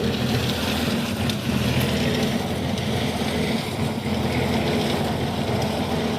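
Portable half-bag concrete mixer running steadily, its motor humming as the drum turns.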